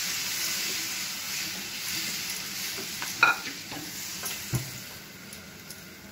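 Cooked toor dal being poured into a hot pan of spiced vegetables and stirred in with a wooden spatula: a steady sizzle that dies down as the liquid cools the pan. Two sharp knocks of the spatula against the pan come just past the halfway point.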